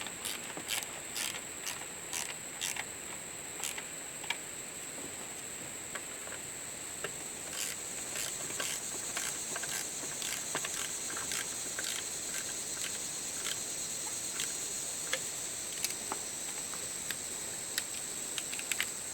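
Socket wrench clicking and tapping in irregular runs of sharp clicks as bolts on the belt-drive brackets are worked, sparser at first and busier from the middle on, over a steady high-pitched hiss.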